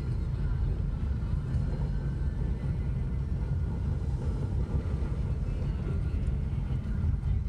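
Strong gusty wind blowing across the microphone: a continuous low rumble that swells and falls with the gusts.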